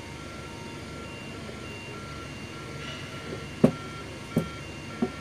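Three sharp metallic clicks in the second half as the rotor and shaft assembly of a cut-open rotary compressor is turned and handled, over a steady background hum and a repeating electronic beep.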